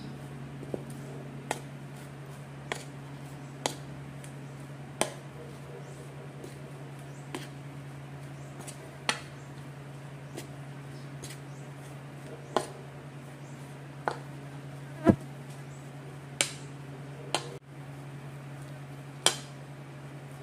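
Plastic spoon stirring shredded cabbage and flour in a ceramic bowl, knocking against the bowl about a dozen times at uneven intervals. A steady low hum runs underneath.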